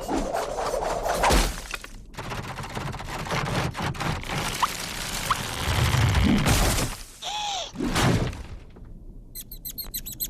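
Cartoon sound effects: a busy run of crashes and thuds, with a deep rumble about six seconds in, a short rising-then-falling tone about a second later, and a fast rattle of clicks near the end.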